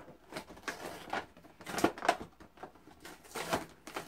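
A toy box of cardboard and clear plastic being pulled open by hand: irregular crinkling and rustling, with louder crackles about two seconds in and again after three seconds.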